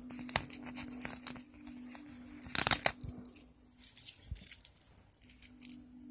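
Packaging of a camp soap sheets pack being torn open by hand: irregular crinkling and crackling, with one louder rip about two and a half seconds in.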